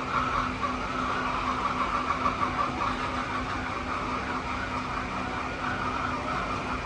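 Dense, continuous chatter of a large flock of hens, with a steady low hum underneath.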